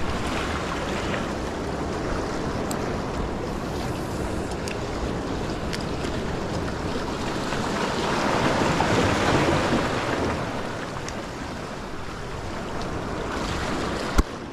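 Small sea waves washing and breaking against jetty rocks, with wind on the microphone; a bigger wash swells up about eight seconds in and fades. A single sharp knock near the end.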